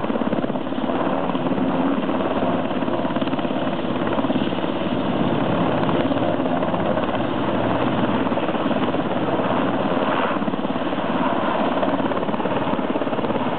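Rescue helicopter running, its rotor blades chopping steadily.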